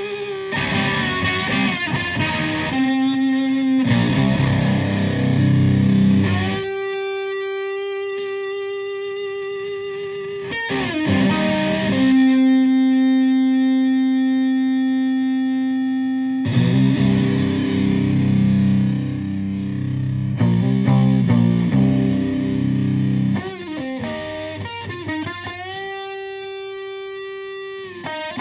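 Stratocaster in drop C played through a Russian Big Muff fuzz pedal with blend and octave, into a Fender Twin Reverb–style amp. Heavy fuzzed riffing alternates with long held notes that sustain for several seconds each.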